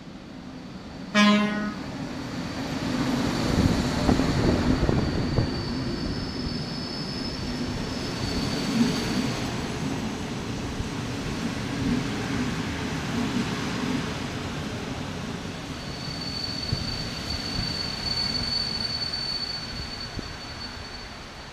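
EP07 electric locomotive sounds one short horn blast about a second in, then runs close past and its passenger coaches roll by with a steady rumble of wheels on rails. A high steady squeal comes and goes twice as the arriving train slows.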